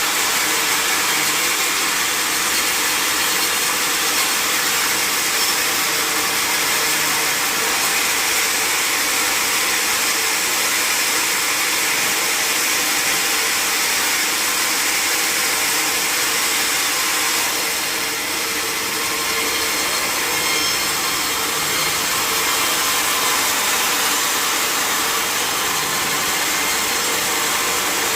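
Sawmill saw cutting through wood: a steady, even sawing hiss with a faint hum underneath, dipping slightly about two-thirds of the way through.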